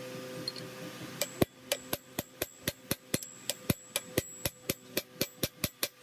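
A hammer tapping a metal engine part in a steady run of sharp, ringing strikes, about four a second, starting about a second in.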